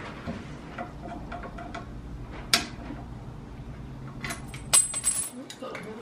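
Light metallic clicks and clinks as steel suspension arms and bolts are handled and lined up, with two sharper clinks, the second about five seconds in ringing briefly.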